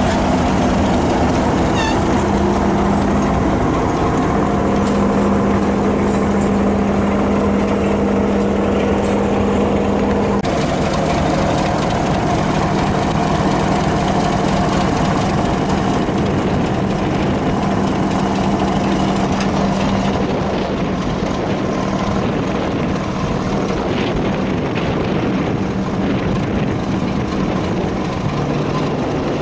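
Diesel locomotive engine running steadily close by. Its note drops slightly about ten seconds in and again near the end.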